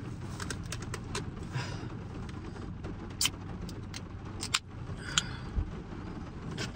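Steady low rumble inside a car's cabin, with a scattering of short, sharp clicks and taps from handling things in the seats.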